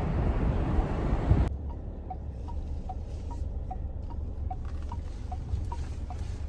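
Wind and road noise from a moving car, cut off abruptly about a second and a half in. Then a quieter low engine hum inside the car, with a turn signal ticking about two and a half times a second, alternating between a higher and a lower click.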